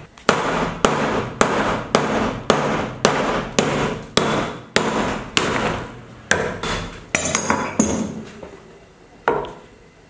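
A dozen or so hard blows struck at a steady pace of about two a second, each ringing briefly. After a short pause there is one more strike near the end.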